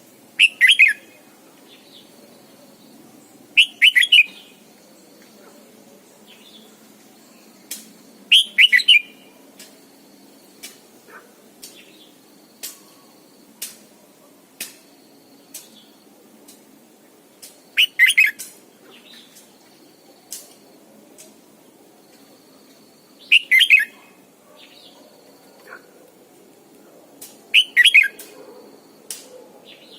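Red-whiskered bulbul singing: six loud, short phrases a few seconds apart, with fainter short calls in between.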